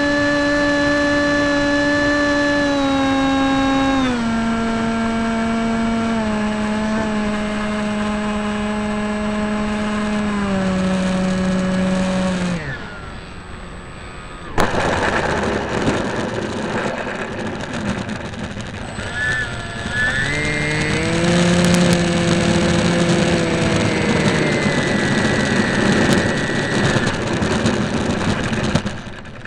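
Onboard sound of a radio-controlled model airplane's motor droning, stepped down in pitch several times as the throttle is eased back on approach, then cutting out about 13 seconds in. A second and a half later a sudden jump of rolling noise comes as the home-made suspension landing gear touches down and rolls on the runway. From about 19 seconds the motor's pitch rises again for taxiing, holds steady and cuts just before the end.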